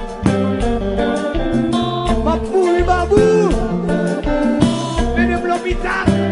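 Live Haitian kompa band playing: bass and drums keep a steady dance beat under guitar, and a male singer's voice slides through a few held notes in the middle.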